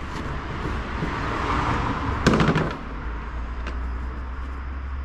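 Plastic heater-housing parts being handled and fitted: a scraping rustle that grows for about two seconds, then a short burst of rattling clicks.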